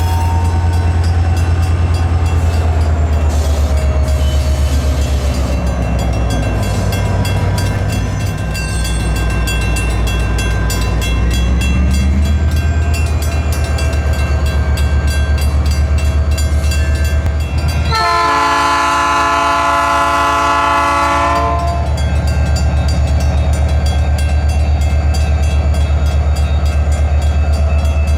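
Diesel freight train rumbling past with a heavy, steady low engine and wheel rumble, its locomotive horn sounding one long blast of several tones about two thirds of the way through.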